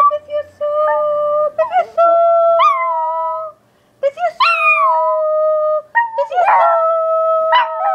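Small dog howling: several long held howls with short yips between them. Some howls start with a quick rise and slide down in pitch.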